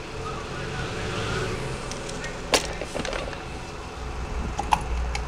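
Sharp clicks and handling rustle from a mobile phone's plastic housing being taken apart by hand, with one loud click about halfway and another near the end, over a steady low hum.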